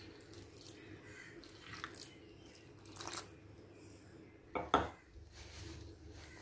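Water being poured slowly into flour in a steel mixing bowl: faint trickling and dripping, with a few short knocks, the loudest a little over halfway through.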